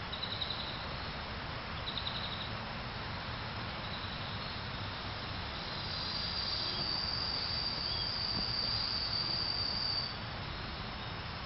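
Insects calling in summer woodland: two short pulsed trills near the start, then a steady high-pitched buzz from about six seconds in that cuts off suddenly near ten seconds, over a constant low outdoor background noise.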